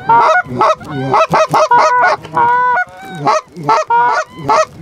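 Loud, rapid goose honks and clucks, several calls overlapping at about three or four a second, with a few longer drawn-out honks mixed in: calling to bring a passing flock of geese in to the decoys.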